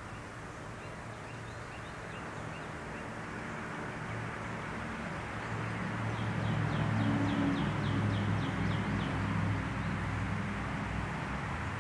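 Small birds chirping outdoors, a quick run of about ten short chirps around the middle with a few fainter ones earlier, over the low hum of an engine that swells and then eases off.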